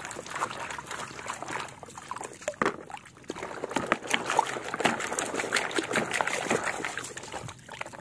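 Muddy water splashing and sloshing in a plastic basin as a hand swishes and scrubs a plastic toy truck under the surface, louder in the middle seconds.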